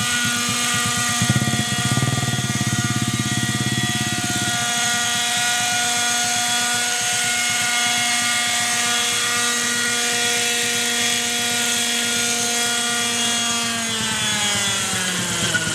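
Kalt Baron 50-size RC helicopter's nitro glow engine running at a steady high pitch in flight. About a second in, a rough low pulsing rotor chop joins it for a few seconds. Near the end the engine note slides down as it is throttled back toward idle.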